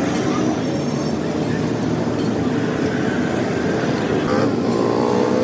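Motor vehicle engine noise running steadily, with an engine's pitch rising near the end.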